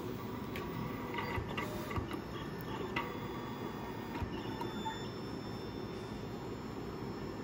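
Daqin IDSKIN phone-film cutting plotter running a cut, its motors whirring as the cutter carriage moves across the film sheet. There is a run of clicks in the first few seconds, then a thin steady whine.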